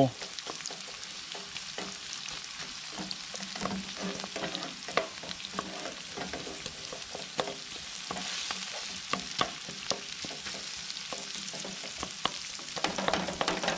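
Diced onions sizzling in hot olive oil in a frying pan, with a wooden spatula scraping and tapping irregularly against the pan as they are spread out.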